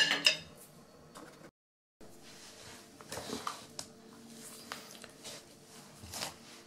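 Faint room tone with a few light knocks and clicks, a hand handling a hammer and tiles on the floor. The sound drops out completely for about half a second near the start.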